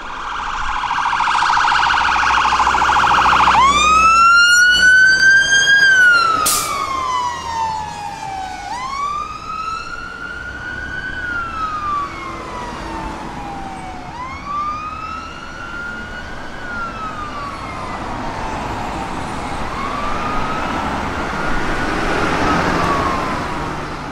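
Scania pump fire engine's electronic siren. For the first few seconds it is on a fast warbling yelp. It then switches to a slow wail that climbs quickly and slides down over about five seconds, repeating four times. It is loudest just after the switch, with a low engine rumble under the yelp.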